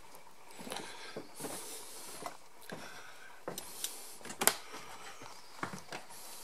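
Footsteps and small handling knocks as someone walks along a barge's narrow corridor: a string of irregular, soft knocks, the sharpest click about four and a half seconds in.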